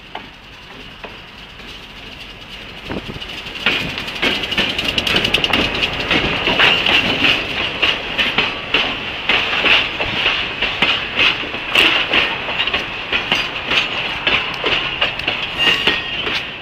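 Diesel-hauled freight train passing close by: it grows louder as the locomotive reaches the crossing about four seconds in, then the cars roll past with rapid wheel clicks over the rail joints and a steady high-pitched wheel squeal.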